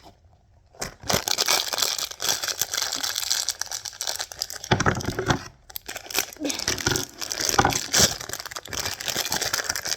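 Plastic packaging crinkling and tearing as small squishy fidget toys are unwrapped and handled, starting about a second in, with a few soft knocks among the rustling.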